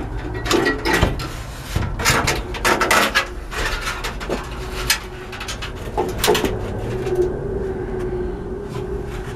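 Clanks and rattles of a heavy compressor head hanging on a chain as it is pushed and moved by hand, with a low steady tone through the second half.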